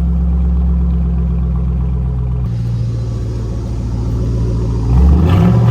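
2006 Ford Mustang GT's 4.6-litre V8 running on open headers with the mid pipe removed: a steady idle, then a rise in revs about five seconds in.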